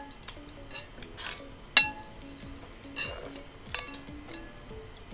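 Metal ladle clinking against a glass punch bowl and ice as an iced drink is ladled into a glass: a series of sharp, briefly ringing clinks, the loudest a little under two seconds in.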